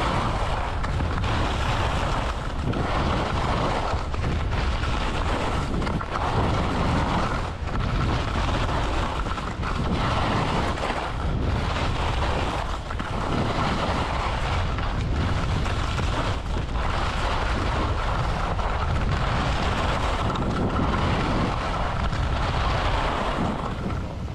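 Wind buffeting the camera microphone during a downhill ski run: a loud, steady rushing noise, broken by brief dips every second or two.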